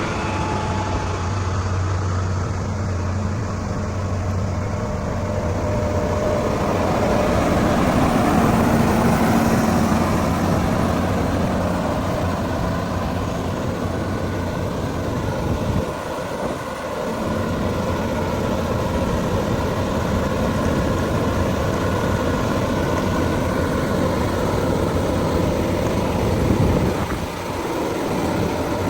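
Road-construction machinery engine running steadily, a continuous mechanical hum that swells slightly around eight to ten seconds in.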